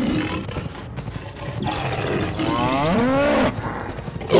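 Tiger roar sound effect: one long roar starting about one and a half seconds in, over a steady low rumble.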